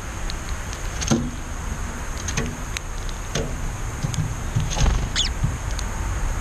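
Scattered light taps, about four in all, and one brief high chirp from a bird about five seconds in, over a steady low rumble and a faint steady high tone.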